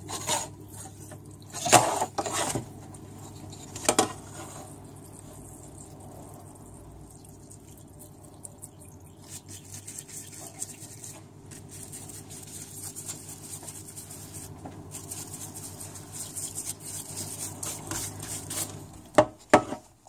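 Parts-washer pump humming steadily while solvent runs over a transmission manifold pressure switch plate to flush fine metal out of it, with a brush scrubbing the plate and a rustling hiss that grows in the second half. Sharp knocks of the plate against the steel sink come early and twice near the end, and the pump stops shortly before the end.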